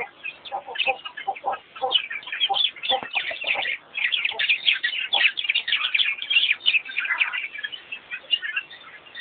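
Many wild birds calling at once: a dense chorus of short, high chirps and twitters, with some lower clucking notes in the first two seconds.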